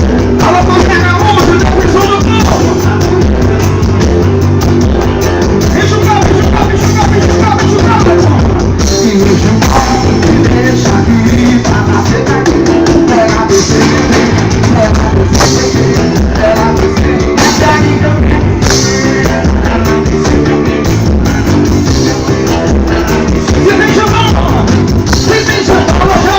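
Loud band music with singing over dense, driving drums, as played by a carnival bloco.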